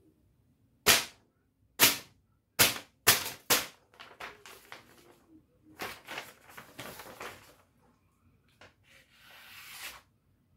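A small bush hatchet slashing through a hand-held sheet of paper: six sharp paper snaps, the first three about a second apart and the last three quicker. Then the paper crinkles and tears, with a longer swish near the end. The edge is not that sharp, so it tears the paper rather than slicing it cleanly.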